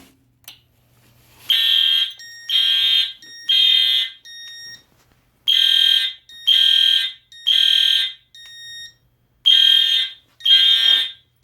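Fire alarm horns sounding in alarm after the pull station is pulled: buzzy blasts in the temporal-three evacuation pattern, three blasts then a pause, repeated, beginning about a second and a half in. A fainter second tone sounds in the gaps between blasts.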